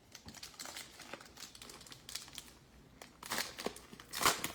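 Foil trading-card pack wrapper crinkling as it is torn open and the cards are slid out: a run of soft crackles and ticks, loudest a little over three seconds in and again near the end.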